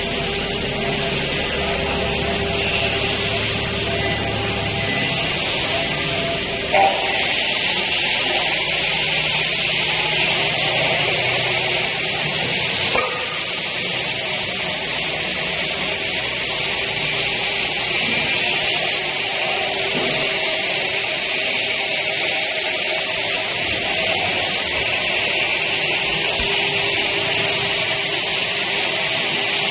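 6090 CNC router spindle cutting a workpiece under a coolant spray, with a steady hissing run. About seven seconds in, a high spindle whine rises in and then holds, wavering slightly.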